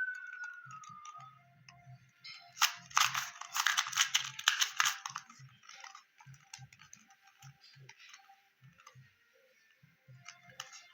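Plastic 2x2 Rubik's cube being turned by hand: a dense run of quick clicking and clattering in the middle, then sparser clicks as the turns slow. A thin high tone wavers and fades out in the first second or so.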